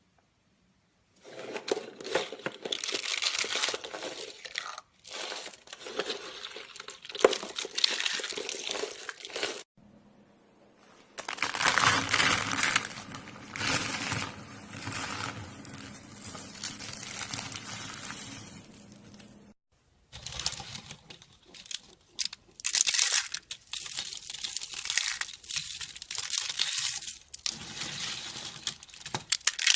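Bar soap being cut and crushed: dense, crisp crackling and crunching in several short runs joined by sudden cuts, with brief silent gaps around five, ten and twenty seconds in.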